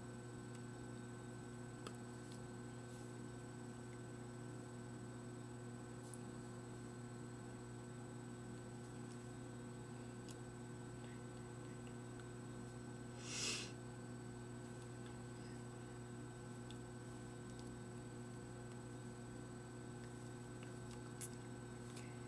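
Steady electrical mains hum with a few faint clicks, and a brief rush of noise a little past halfway.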